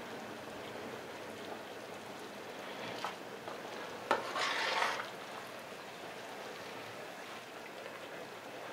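A steel pot of grain mix (peas, corn, wheat, hemp seed) boiling on a gas stove, with a steady bubbling hiss. A spoon stirs it briefly about four seconds in, after a light tap a second earlier.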